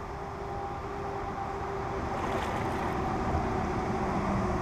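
Steady hum of a small boat motor over low wind and water rumble, slowly getting louder, with a short rush of noise about two seconds in.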